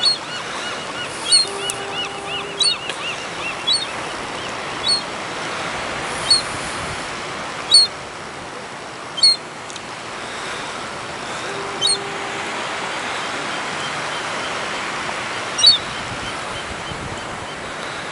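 Seagulls calling in short, sharp squawks every second or two while squabbling over food, with a quick run of repeated chirps in the first few seconds, over a steady outdoor hiss.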